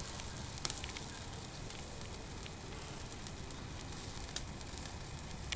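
Chicken legs sizzling over open flames on a barbecue grill: a steady hiss with scattered sharp crackles and pops.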